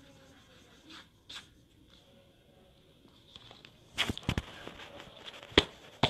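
Faint rubbing of an eraser on paper, then from about four seconds in a handful of sharp knocks and clatters, the loudest near the end, as the camera is picked up and moved.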